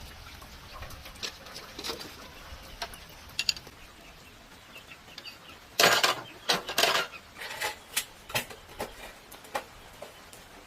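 Metal tools and parts clinking and knocking during work on an old single-cylinder diesel tractor: scattered clicks, with a loud run of knocks about six seconds in.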